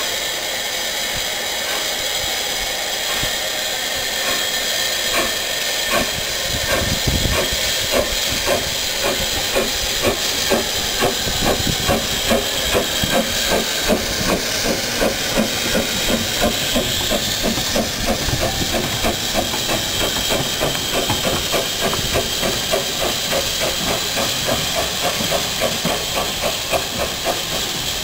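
SECR P class 0-6-0 tank engine No.323 'Bluebell' starting a shunting move: a steady hiss of steam, with exhaust chuffs that begin slowly a few seconds in and quicken to a steady beat of about two or three a second.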